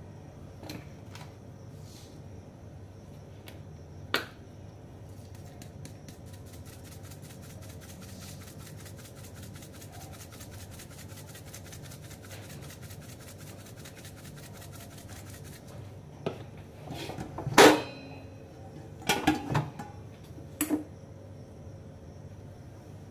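Kitchen handling sounds over a steady low hum. A single light knock comes about four seconds in. A fine, even rapid ticking follows for several seconds while spice is dispensed from a dark container over bread on a griddle. Near the end come a louder clatter and several knocks as a container and spoon are handled.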